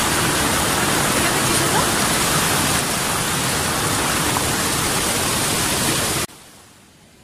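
Rushing mountain stream tumbling over rocks: a loud, steady rush of water that cuts off suddenly about six seconds in.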